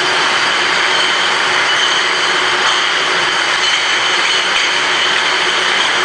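Glass bottle washing machine running: a loud, steady mechanical din with a constant high whine as its conveyor carries the bottles through.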